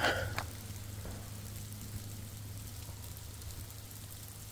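Faint, even patter of snowmelt dripping from sun-warmed, snow-laden conifers, with a steady low hum underneath.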